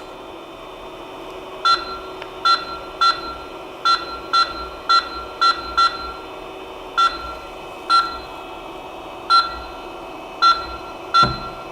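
Creality CP-01 3-in-1 machine's controller beeping at each button press, about a dozen short, identical beeps at uneven intervals while the laser head is jogged into position. A steady hum from the machine runs underneath.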